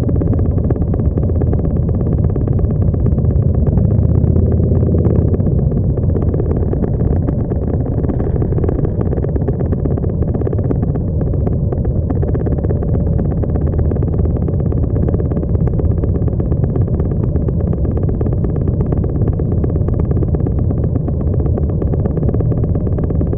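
Motorcycle engines idling and creeping along in a tight column of bikes: a steady low engine sound that swells slightly about four seconds in.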